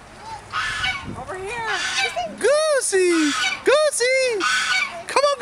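Domestic goose honking: a run of short honks, each rising then falling in pitch, beginning about a second in and coming thick and fast in the second half. The owner takes these for happy greeting honks.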